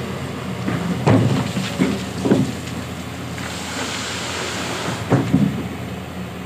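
Kobelco SK200 hydraulic excavator's diesel engine running steadily, with loud clunks and clatter of river stones in and against the steel bucket about a second in, twice more shortly after, and again around five seconds in.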